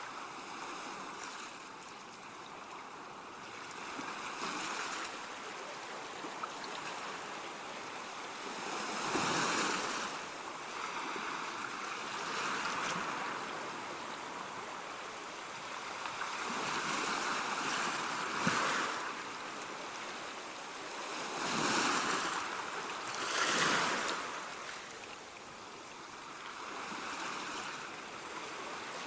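Ocean waves breaking and washing on a shore, a continuous rushing surf that swells and ebbs, with the louder breaks about every few seconds.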